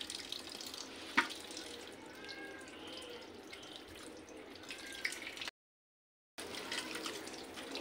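Tap water running and splashing into a stainless-steel kitchen sink, with one sharp knock about a second in. The sound drops out completely for about a second, two-thirds of the way through.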